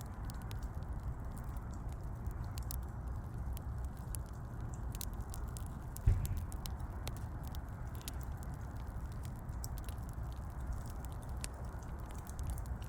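Burning firewood crackling: scattered sharp snaps over a steady low rumble, with one loud pop about six seconds in.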